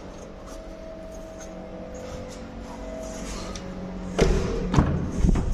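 Suzuki Wagon R's doors being shut and opened: a cluster of heavy thumps and clunks about four seconds in, over a steady low hum.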